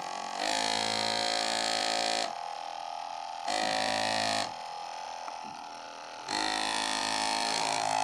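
Small 12 V DC motor running and spinning a washing-machine drain-pump motor used as a generator: a steady buzzing drone with many overtones. It drops to a softer level twice, about two seconds in and again about four and a half seconds in, and comes back each time.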